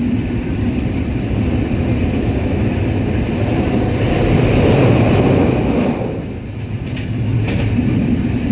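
Running noise of a moving train: a steady, loud rumble that swells about four to six seconds in, drops briefly, then settles back, with a couple of faint clicks near the end.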